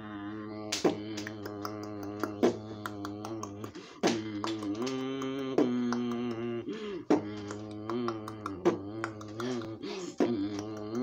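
Beatboxing: a held hummed note that shifts pitch a few times, under vocal percussion. A sharp strike lands about every second and a half, with lighter clicks between.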